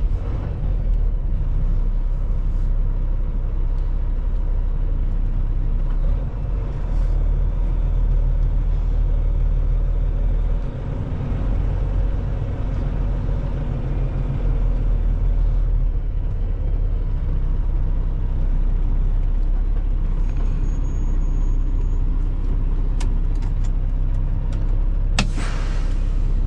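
Semi truck's diesel engine running at low speed, heard from inside the cab as the truck creeps forward; the low rumble eases briefly about ten seconds in. Near the end there is a short hiss.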